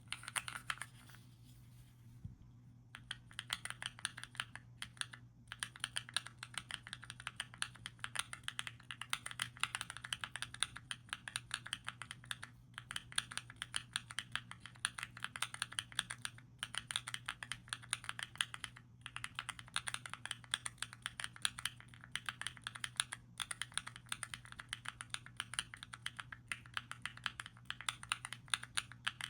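Fast typing on Epomaker Zebra mechanical key switches: a dense stream of soft, creamy keystroke clicks that starts in earnest about two and a half seconds in and breaks off briefly every few seconds.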